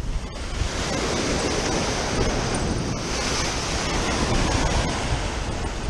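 Ocean surf breaking and washing over rocks, a steady rush that swells about half a second in.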